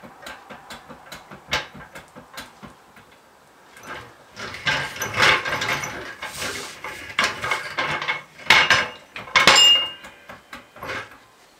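Car jack being worked under a car: a run of light clicks, then, from about four seconds in, louder scraping and clattering of the jack and its handle as it is raised and set in position.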